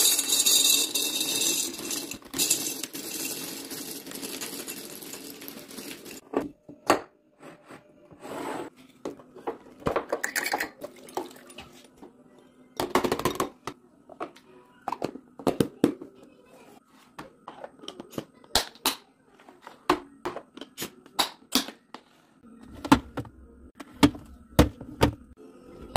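Dry penne pasta poured into a glass jar: a dense rattle for about six seconds. Then a string of separate sharp clicks, taps and knocks as glass and plastic food containers and lids are handled.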